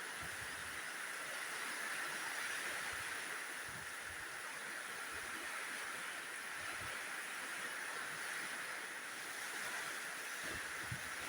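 Rain falling steadily in strong wind, an even hiss, with a few short low bumps of wind on the microphone near the end.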